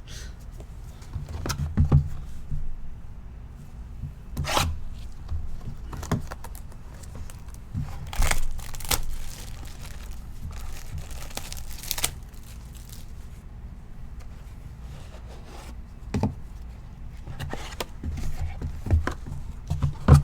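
Packaging of a sealed box of baseball trading cards being torn open and handled: irregular ripping and crinkling with scattered clicks and rustles, the longest tearing about halfway through.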